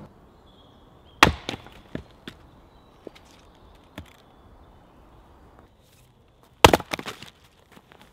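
Axe splitting a log on a chopping block, two blows about five and a half seconds apart, each followed by a few smaller knocks as the split wood falls.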